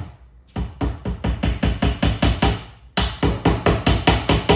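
Background music with a fast, steady drum beat of about six strokes a second; about three seconds in a bright hissing cymbal layer comes in on top of it.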